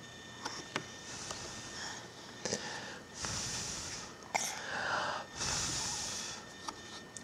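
A baby's breathy huffs, three in a row of about a second each starting about three seconds in, after a few faint clicks.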